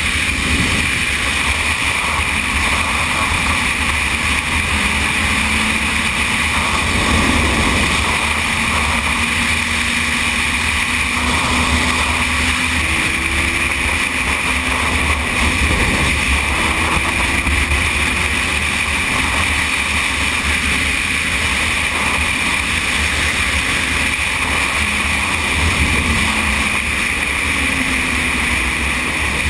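Steady wind and road noise from a Yamaha Thundercat motorcycle at motorway speed, with its inline-four engine running underneath and its pitch drifting slightly up and down a few times.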